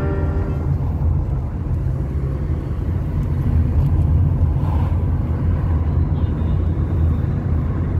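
Car driving at low speed, heard from inside the cabin: a steady low rumble of engine and road noise.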